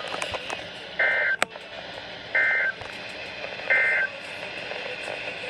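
Emergency Alert System end-of-message signal over NOAA Weather Radio: three short, buzzy digital data bursts about a second and a third apart, marking the end of the severe thunderstorm warning broadcast. Radio static hisses underneath, with one sharp crackle just after the first burst.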